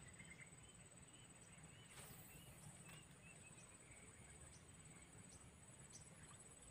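Near silence: faint rural outdoor ambience, with a thin steady high tone and a few faint chirps.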